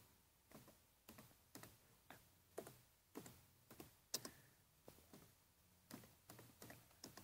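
Slow, faint typing on a computer keyboard: single key clicks about two a second.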